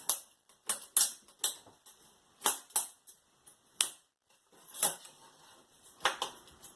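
Sharp, irregular clicks and clacks of hard parts being handled, about ten in all: the TV's LED backlight strips being worked off the metal back panel with a putty knife.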